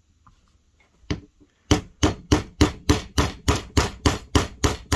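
A plastic-faced mallet taps a steel punch, driving the small gas tube pin through an AR-15 gas block. There is one tap about a second in, then a steady run of about a dozen quick taps, roughly three a second.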